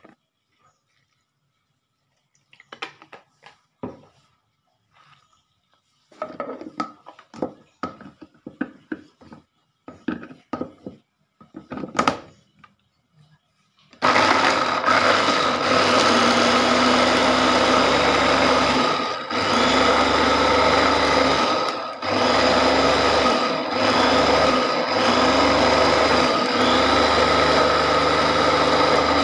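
Electric mini chopper with a plastic push-top motor head grinding shallots, garlic, candlenuts and spices with water into a paste. Its motor starts about halfway through and runs loudly with a steady whine, pressed in pulses with several brief stops. Before it starts, a series of short plastic clicks and knocks.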